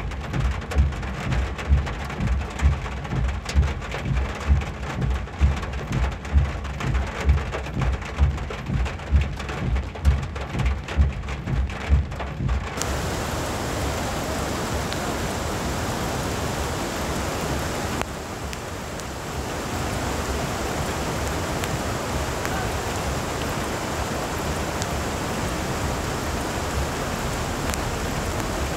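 Heavy rain and rushing floodwater making a steady hiss. For the first half, a regular low thumping of about one and a half beats a second runs under it. About halfway through the thumping stops and the hiss turns brighter and even, dipping briefly a few seconds later.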